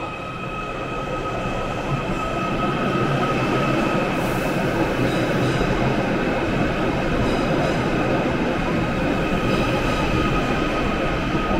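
A Merseyrail Class 777 electric train, built by Stadler, pulling out of the station. Its running noise builds over the first few seconds and then holds steady, with a steady high whine over the rumble.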